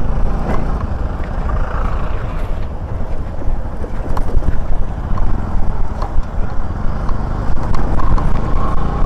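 Motorcycle running at riding speed, with steady engine rumble and road noise over a rough gravel road.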